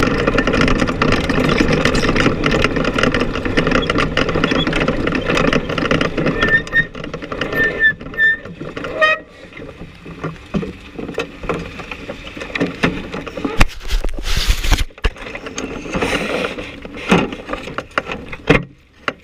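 Sprint car V8 engine running at low revs as the car rolls slowly, then cut off about nine seconds in. After that come scattered knocks and thumps around the car, the loudest about fourteen seconds in.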